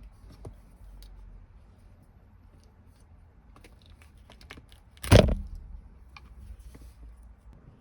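Scattered small clicks and handling noises from working on loose wiring, with one loud, sharp snap about five seconds in.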